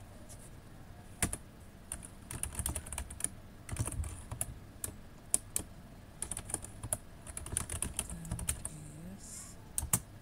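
Typing on a computer keyboard: sharp keystroke clicks in uneven bursts with short pauses between them.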